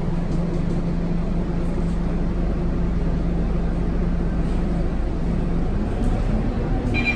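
A Scania K230UB city bus's five-cylinder diesel engine idling steadily, heard from inside the bus. Near the end the engine note starts to rise, and a short high electronic beep sounds just before the end.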